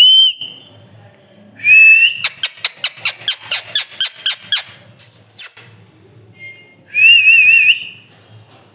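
Pet parrot giving loud, shrill whistles and calls. There is a short whistle at the start, then a held whistle about two seconds in that breaks into a rapid run of about a dozen short chirps, and a warbling whistle near the end.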